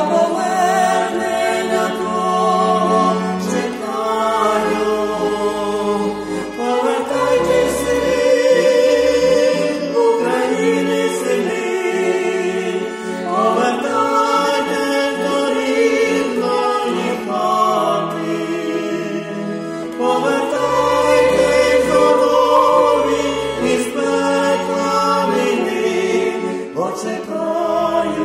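A woman and a man singing a Ukrainian song together, accompanied by a button accordion with held chords and bass notes that change every few seconds.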